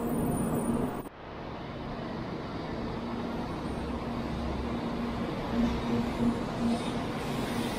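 Steady hum and low rumble beside a stationary JR West 700 series "Rail Star" shinkansen standing at the platform, with a repeated drone. The sound changes abruptly about a second in.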